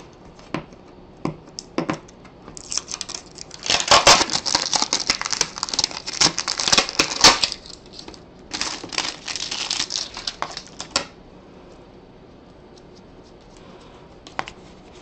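VOID security tape being peeled and torn off the cardboard end cap of a bat shipping tube. A few small clicks, then two long spells of crackling, tearing tape.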